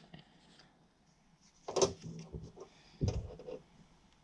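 Objects being handled and set down on a hard surface: two knocks, the first a little under two seconds in and the second about three seconds in, with faint rustling and shuffling between.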